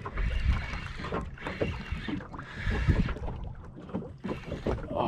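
Water slapping and lapping against a small fishing boat's hull, with a low wind rumble on the microphone and irregular knocks.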